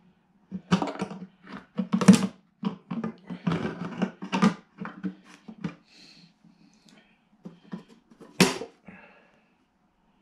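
Handling noise from a black box casing being opened by hand: a run of close knocks, clicks and scraping for the first five seconds or so, then quieter scattered sounds, with one sharp loud knock near the end.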